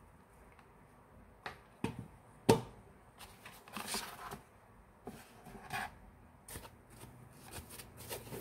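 Handling noises: a few sharp knocks about two seconds in, the loudest about two and a half seconds in, as the spot welder pen is set down, then uneven rustling and scraping of the cardboard box and its foam packing insert being handled and lifted out.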